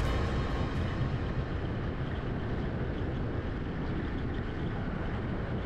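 Steady rumble of wind and traffic noise while riding a motor scooter. Music fades out about a second in.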